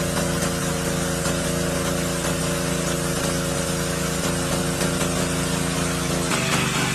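Small engine running steadily at a constant speed. Near the end its note shifts abruptly.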